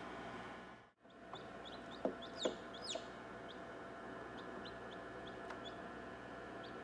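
Chicks peeping, short high chirps repeating again and again over a steady hum. The sound drops out briefly about a second in, and a few louder chirps and knocks come about two to three seconds in.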